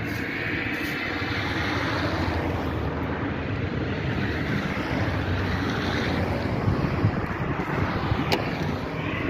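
Wind blowing across the microphone, a steady noisy rush with no speech, with one short sharp click near the end.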